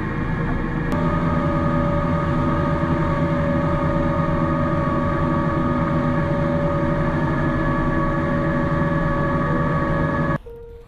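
Motorboat engine running steadily under way, with a rapid low pulse and a steady whine. It picks up slightly about a second in and cuts off suddenly near the end.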